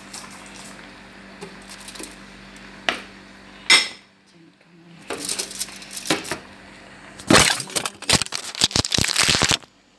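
Kitchenware being handled: a single sharp ringing clink, then rattling and a quick run of loud clattering knocks of utensils and pans.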